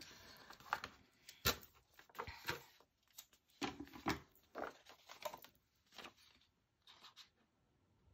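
Faint, scattered snips and rustles: small scissors trimming the excess off a paper sticker, and paper and sticker sheets being handled.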